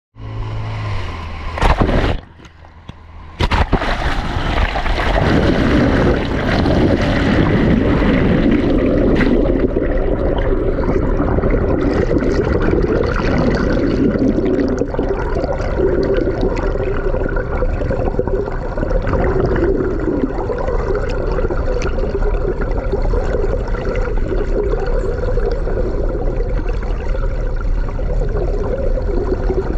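Muffled underwater water noise heard through a submerged camera: a loud splash about two seconds in, then steady rushing and gurgling of water.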